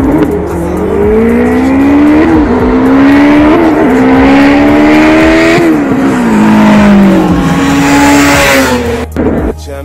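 Two turbocharged four-cylinder race cars, a Mitsubishi Lancer Evolution X and an all-wheel-drive Honda Civic, accelerating flat out through the gears: the engine note climbs and drops back at each upshift, then falls with a rush of noise as the cars come close near the end. The sound cuts off suddenly about nine seconds in.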